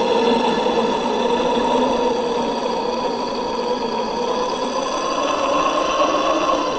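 A man's voice holding one long, steady, growling note, run through voice effects.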